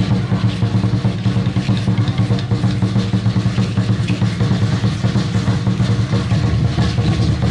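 Aztec dance drumming: a large upright huehuetl drum beaten in a fast, steady rhythm, with a dense rattling layer on top.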